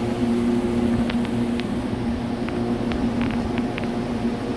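Steady hum of machinery running in a metalworking shop, holding one even pitch, with a few faint clicks in the middle.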